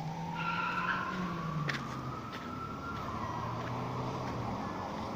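A motor vehicle running, its whine rising slowly in pitch and then dropping about three seconds in, over a low engine hum.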